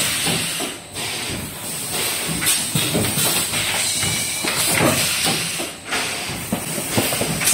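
An automatic paper-card blister packing machine running: steady hissing of compressed air with a busy clatter of knocks and clicks from its pneumatic stations. It briefly goes quieter twice, about five seconds apart.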